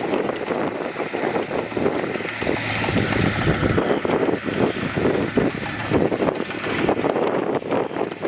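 Heavy diesel earthmoving machinery working, with dense, continual clattering and knocking over a faint steady engine hum.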